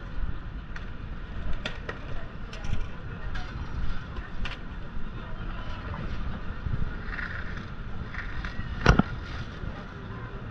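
Busy city street ambience: a steady low traffic rumble with scattered clicks and knocks from passersby and street activity, and one sharp knock near the end.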